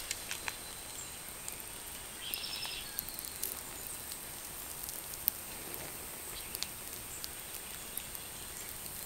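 Small flame burning on a plastic flexible dryer vent duct, giving faint scattered crackles and ticks over a steady hiss, with one sharper tick about five seconds in. The plastic duct material burning is what makes it crackle.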